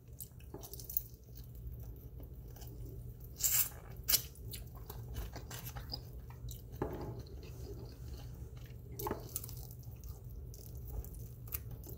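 A person chewing and biting into honey barbecue chicken wings, with scattered short smacks and clicks over a steady low hum.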